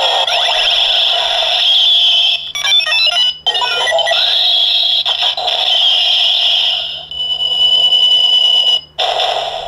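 Kamen Rider Decadriver toy belt (20th-anniversary reissue) playing its special Zero One card sound: a run of electronic transformation sound effects from the earlier Kamen Riders. It comes as a string of loud electronic tones, chimes and effects, with brief breaks between segments.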